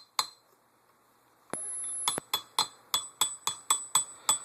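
Armorer's wrench tapping a steel pin punch, metal on metal with a short ring after each strike, driving out the forward assist roll pin. One tap near the start, a short steady hiss about a second and a half in, then quick taps at about four a second.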